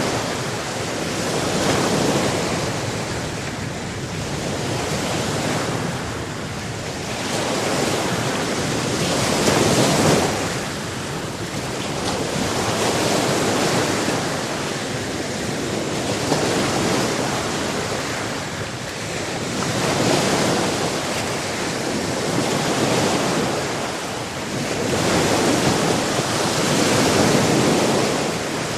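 Sea surf: waves breaking and washing up the shore, the wash swelling and ebbing every few seconds, with some wind on the microphone.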